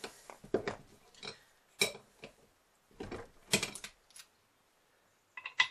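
Metallic clicks and clinks of brass rifle cases being handled and deprimed in a small hand-operated bench press: several sharp strikes spread over a few seconds, the loudest near the end.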